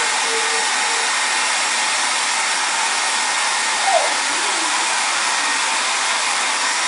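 Handheld hair dryer running steadily, blowing hot air onto crayons glued to a canvas to melt them.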